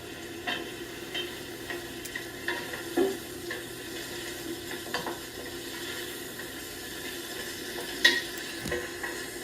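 Food sizzling in a pan, with a handful of sharp clicks of a utensil against the cookware.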